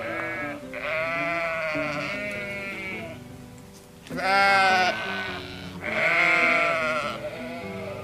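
Sheep bleating three times, each call long with a wavering pitch; the middle one, about four seconds in, is the loudest. Soft background music plays underneath.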